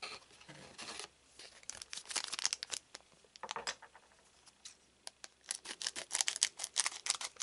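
Foil trading-card booster pack crinkling and crackling as it is handled. There are two runs of quick crackles, one about a second and a half in and a denser one from about five seconds in.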